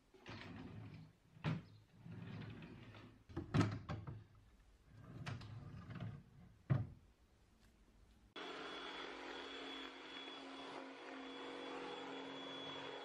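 Wooden drawers of an IKEA Hemnes bedside table sliding on their metal runners and shutting with several sharp knocks. About eight seconds in, a cordless stick vacuum cleaner switches on suddenly and runs with a steady hum.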